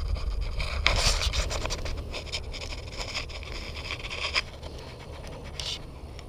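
Scratching and fine clicking of fishing pliers working a hook loose from a small bass's mouth. It starts about a second in, runs for about three and a half seconds and stops, with one more brief scratch near the end, over a steady low rumble.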